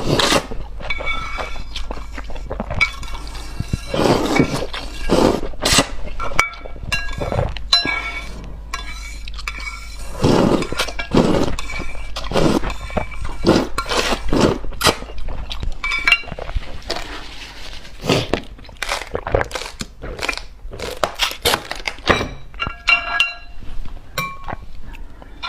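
Eating noises at close range: an irregular string of clinks, knocks and crunches from utensils against dishes and from chewing.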